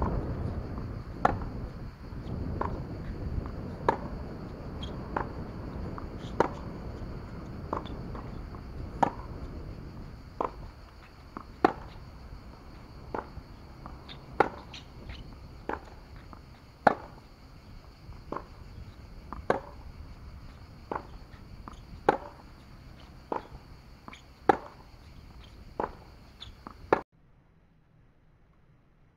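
Tennis balls struck by rackets in a steady baseline rally on a hard court: a sharp pop about every one and a quarter seconds, louder hits alternating with fainter ones from across the court. Wind rumbles on the microphone during the first third, and the sound stops suddenly near the end.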